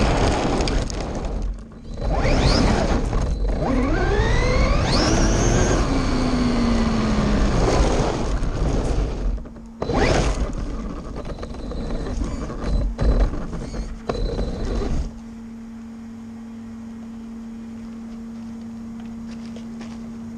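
Electric RC car motor whining through repeated hard accelerations and passes, its pitch sweeping up and falling away, over tyre and gravel noise. About 15 seconds in the loud running cuts off, leaving a quieter steady hum.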